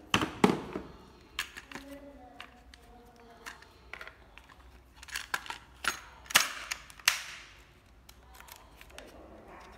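Hard plastic clicks and knocks as Makita battery packs and the impact driver are handled in and against their plastic carrying case. It is an irregular string of sharp clicks, with a cluster of louder knocks about five to seven seconds in.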